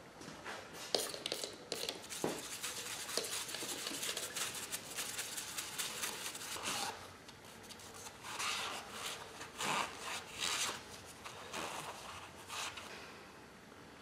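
Brushing and wiping over the cast-iron cylinder head of a Vortec 8.1: a dense, continuous rubbing and scraping for the first several seconds, then a handful of separate wiping strokes that die away near the end.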